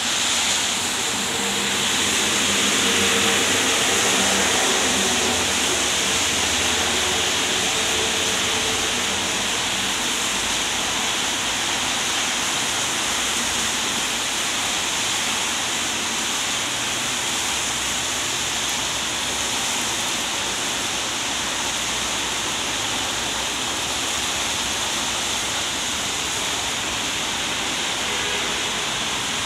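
Steady hiss of rain falling on a city street, mixed with the tyre hiss of traffic on the wet road. A low rumble of passing vehicles is heard during the first several seconds.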